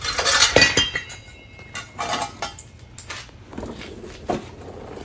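Metal tools and parts clinking and clattering against each other. It is busiest in the first second and again about two seconds in, then quieter.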